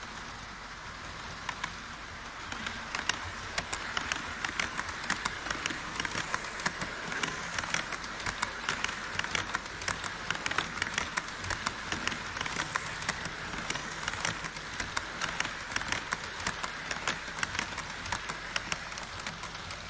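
HO-scale model E5-series Shinkansen train running past on sectional track: a steady whirring hiss of motor and wheels with a fast, irregular clicking of the wheels over the rail joints, starting about two seconds in.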